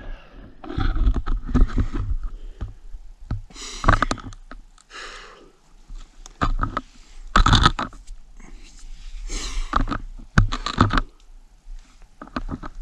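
A hiker breathing hard from a steep rock scramble, exhaling in loud, noisy puffs every second or two, over a low rumble on the microphone.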